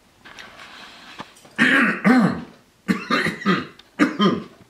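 A man clearing his throat and giving a few short coughs, three or four times in the second half.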